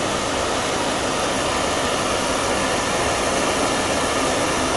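Kerosene pressure lantern burning with a steady hiss after repair: the burner now runs smoothly and normally instead of flaring.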